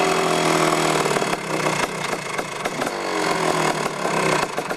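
Two-stroke motocross bike engine idling with the bike standing still, a steady low note under a dense, rough crackling rattle.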